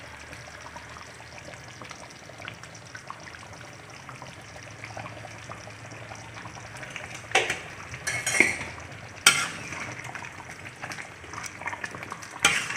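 Stew simmering with a soft bubbling in a metal pan. In the second half a metal spatula stirs it, with several sharp clacks against the pan.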